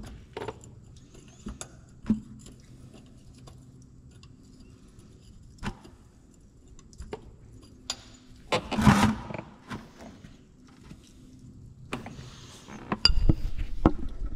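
Small metal clinks of a hand wrench and bolt as a bolt is worked out of a truck's PTO housing to drain its oil, over a faint steady hum. There is a louder scraping burst about nine seconds in and some louder knocks near the end.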